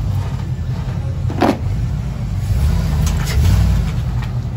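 Chevrolet Silverado pickup's V8 running with a deep, loud exhaust rumble. A short, sharp sound cuts in about a second and a half in.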